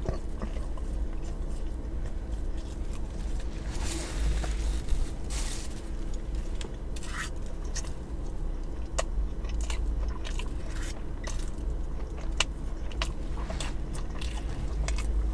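Close-miked chewing and biting of food, with many small sharp mouth clicks scattered throughout and a steady low hum underneath.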